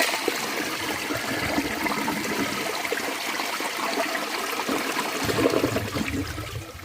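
Eljer St. Clair front-flush toilet flushing with a standard flapper: water rushes from the tank through the bowl and down the siphon, which sounds pretty weird with this flapper. The rush drops off near the end, leaving a quieter steady running of water as the tank refills.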